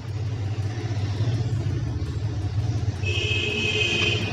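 A steady low rumble, with a high squeak-like sound starting about three seconds in as the metal reballing stencil is handled.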